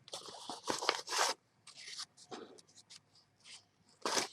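Packaging rustling and crinkling in irregular bursts, with small taps and scrapes, as vegetables are handled out of a delivery box; the loudest rustling comes in the first second and again near the end.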